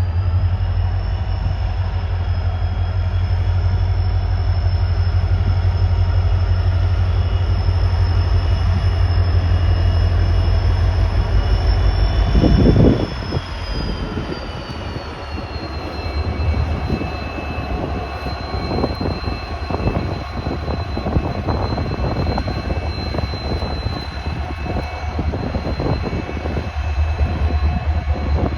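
WDG4 diesel locomotive's turbocharged two-stroke V16 engine running under power, with a heavy low rumble and a high turbocharger whine that rises at the start and then holds. About halfway through the rumble drops off sharply and the whine glides down to a lower steady pitch as the engine eases back.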